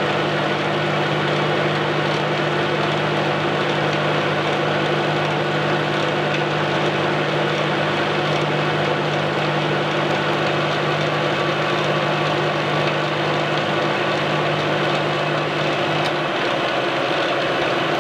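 LeBlond engine lathe running under power while the tool takes a cut along a steel shaft, turning the hex corners off the stock; a steady machine hum and cutting noise. Near the end the lowest part of the hum drops away.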